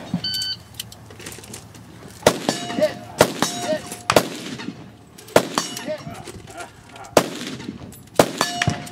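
A shot-timer start beep, then a string of about seven gunshots spaced roughly a second apart, several of them followed by the ring of a struck steel target plate.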